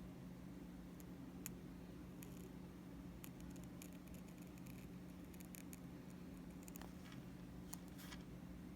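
Hand microblading blade drawing strokes through a banana peel: faint, short crisp scratches in small clusters, like a blade cutting into skin, over a low steady hum.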